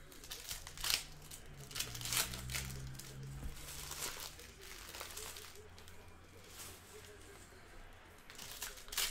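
Foil wrappers of basketball card packs from a 2018-19 Panini Court Kings blaster box crinkling and tearing open, a run of sharp rustles that is busiest in the first few seconds and again near the end.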